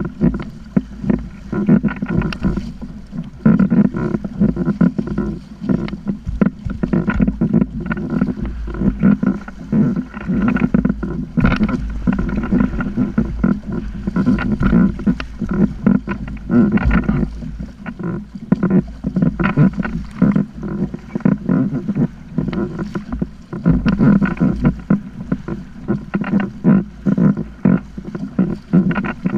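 Water slapping and splashing against a plastic sit-on-top kayak's hull in quick, irregular knocks, over a steady low rumble of wind on the microphone.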